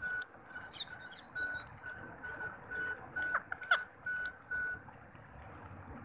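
Bird calls: one short note at a steady pitch repeated evenly about two or three times a second, stopping near the end, with a few quick falling chirps a little past the middle.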